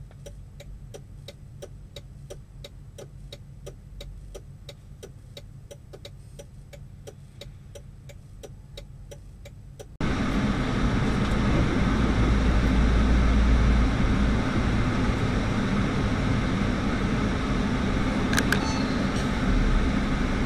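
Truck cab noise. For the first half, a faint steady ticking about three times a second sits over a low engine rumble. Then there is an abrupt cut to the loud, steady rumble of engine and road noise while driving, with a short sharp click near the end.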